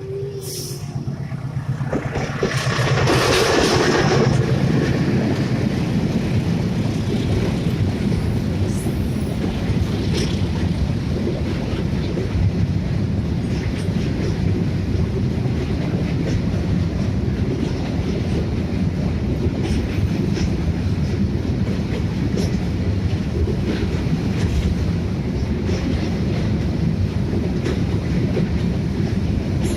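Freight train passing close by: a loud rush about two to four seconds in, then the steady rumble of the wagons rolling past, with wheel clicks over the rail joints.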